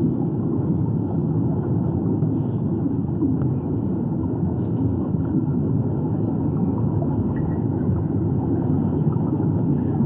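Steady low underwater rumble and water noise picked up by a submerged camera, with no distinct events.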